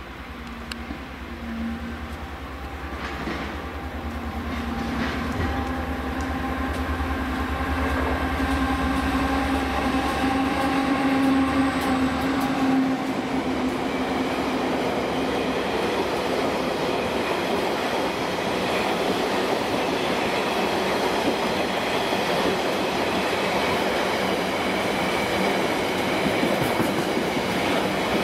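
Class 59 diesel locomotive with an EMD two-stroke V16 engine, droning and growing louder as it approaches, passing about halfway through. The wagons of its train, loaded with rails, follow with a steady rolling rumble.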